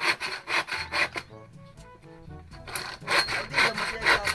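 Hand saw cutting wood with quick back-and-forth strokes, about four a second. The strokes pause for about a second and a half midway, then start again.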